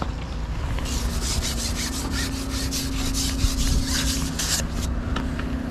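A carbon match-fishing pole being pushed out over the water, its length sliding through the angler's hands in a quick run of rubbing strokes for about four seconds.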